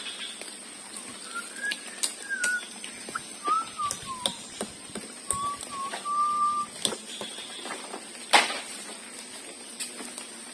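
A string of slow whistled notes that glide up and down, among scattered knocks and clicks from work on a wooden shelter frame, with one sharp knock about eight seconds in. A steady high insect drone runs underneath.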